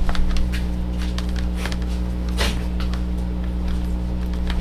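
A few scattered light clicks and taps from handling a mechanical keyboard and its cable, the sharpest about two and a half seconds in, over a steady low hum.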